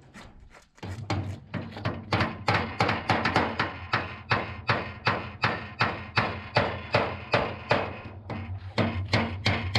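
Background music with a steady, quick beat over a held low tone, starting about a second in.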